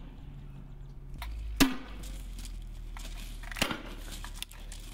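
40 mm grenade launcher firing: one sharp report about a second and a half in with a short low ring after it, then a weaker report about two seconds later.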